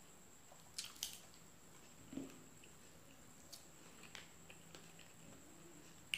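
Faint, scattered crisp clicks and a few soft wet smacks from close-miked eating: mouth sounds and fingers breaking a piece of raw bitter melon. The sharpest click comes at the very end.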